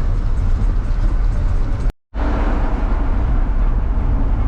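Steady low rumble of a moving vehicle's engine and road noise, cutting out for an instant about two seconds in.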